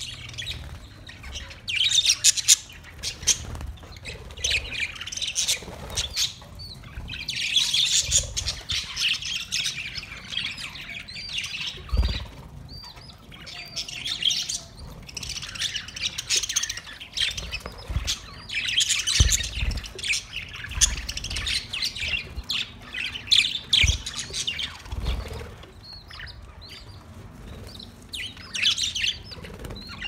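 A flock of budgerigars chattering in bursts of warbling chirps and squawks, with a few short low thumps.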